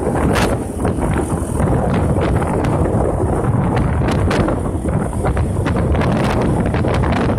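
Heavy wind buffeting the microphone of a moving motorcycle, with frequent crackling gusts, over a steady low rumble of the bike and its tyres on the road.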